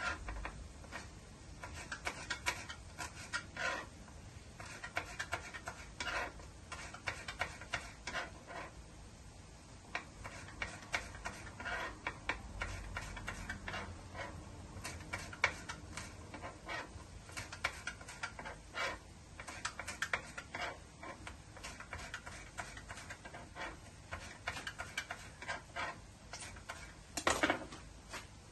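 Kitchen knife tapping and cutting through cherry tomatoes on a plastic chopping board, in irregular runs of quick taps, with one louder knock near the end.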